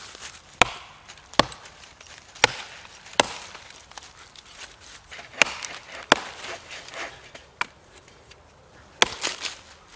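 Axe chopping into a rotted log: about eight sharp strikes at uneven intervals, with a pause of over a second before the last blow near the end.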